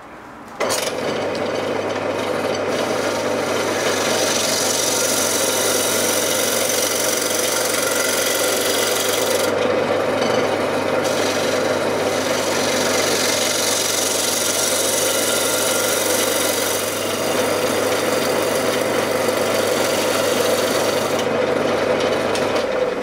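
A tool rubbing against the face of a wooden disc spinning on a wood lathe: a steady rasping rub that starts abruptly under a second in and eases briefly about ten seconds in. The lathe motor's steady hum runs underneath.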